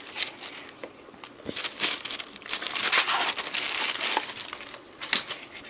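Tissue paper rustling and crinkling in irregular bursts of crackles as it is handled around a doll's shoe box.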